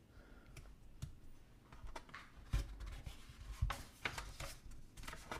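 Pages of a picture book being turned by hand: faint paper rustling and rubbing, with a couple of soft bumps about halfway through as the cover and pages are laid flat.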